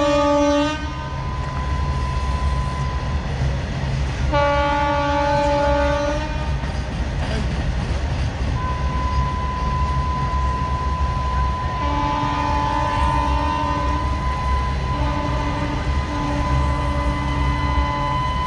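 Railway locomotive horn sounding long blasts over a steady low rumble. One blast ends near the start, another comes about four seconds in, and three more follow in close succession from about twelve seconds on, as a train approaches.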